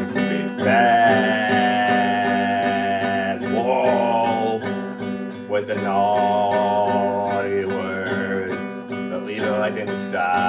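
Music: strummed acoustic guitar backing, with three long, wavering held notes over it.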